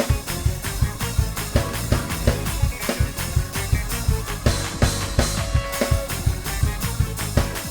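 Gospel praise-break groove on drum kit and keyboard: fast, dense drum strokes at a driving even tempo under held keyboard chords, with a brighter cymbal-like wash about four and a half seconds in.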